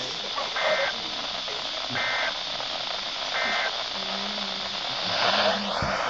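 Midland weather radio's speaker playing the EAS end-of-message code at the close of a NOAA Weather Radio required weekly test: three short, identical two-tone data bursts about one and a half seconds apart, over steady radio hiss.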